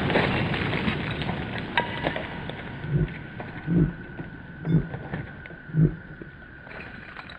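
The echo of a .30-06 rifle shot rolls away and dies down over the first two seconds. After it come four soft, low thumps about a second apart.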